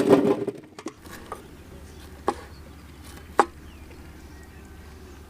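A rush of noise dies away at the start. Then come two sharp knocks about a second apart, with a few faint ticks, over a steady low hum.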